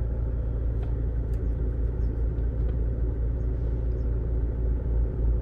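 A 2018 Toyota Hilux diesel engine running at idle with a steady low rumble. It has the shaking of a cylinder-1 misfire, which the scan tool traces to a faulty number-one injector.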